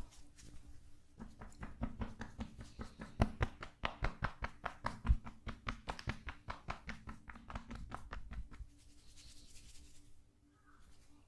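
Massage tapping: hands striking the body in a quick, even run of several taps a second, louder in the middle. The taps stop near the end, leaving soft rustling.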